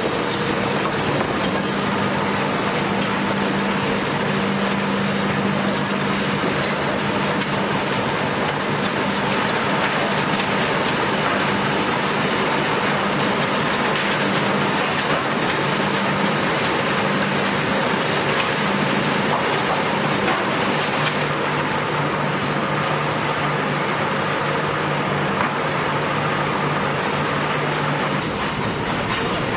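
An engine-driven saw running steadily through a log, a dense grinding noise over a steady engine note whose pitch drops partway through as it takes more load.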